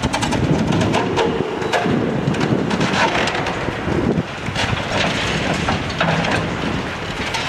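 Hydraulic excavator's demolition attachment breaking up a reinforced-concrete building: continuous crunching of concrete with many irregular sharp cracks and knocks of breaking and falling debris, over the machine's running engine.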